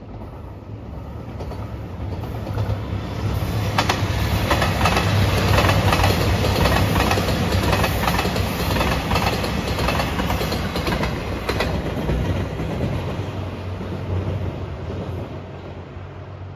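JR Shikoku 2700 series diesel multiple unit passing close by: a low engine drone under a rush of running noise that swells, peaks mid-way and fades. Rapid wheel clicks over rail joints run for several seconds in the middle.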